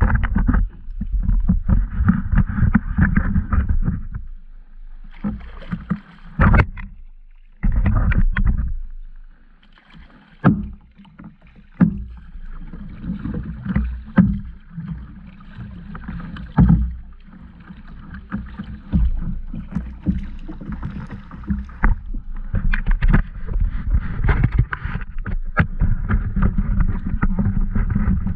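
Paddling a plastic sit-on-top kayak, heard through a camera mounted on the hull: paddle strokes splashing and water sloshing against the hull, with frequent sharp knocks and brief lulls between bouts of strokes.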